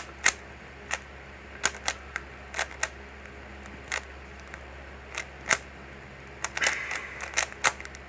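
A 3x3 Rubik's cube being turned fast by hand: irregular sharp clicks as its plastic layers snap round, with a quick flurry of turns near the end.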